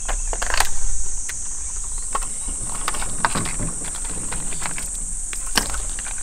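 A steady, high-pitched drone of insects, with scattered small clicks and knocks from tackle being handled in a boat.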